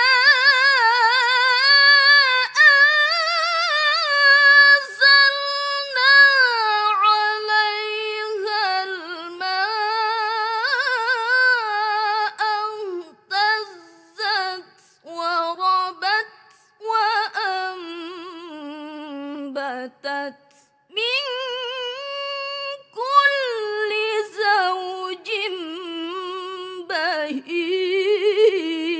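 A teenage girl reciting the Qur'an in melodic tilawah style, her high voice holding long ornamented notes with a wavering vibrato and gliding up and down through runs of pitch. Several short breaks for breath come in the middle.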